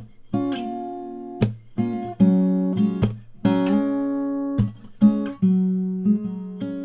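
Background music: acoustic guitar strumming chords, each chord struck sharply and left to ring out.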